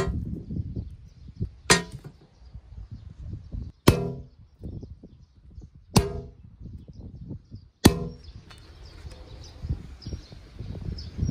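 Stainless steel sheet struck by hammer blows, four sharp clangs about two seconds apart, each ringing briefly, as the sheet is worked into a griddle.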